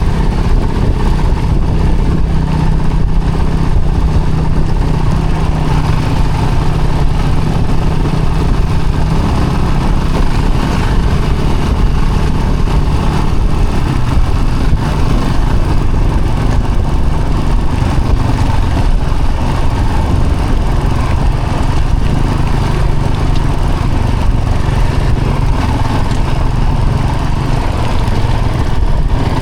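A vehicle's engine running steadily as it drives along, its note shifting a little lower about halfway through.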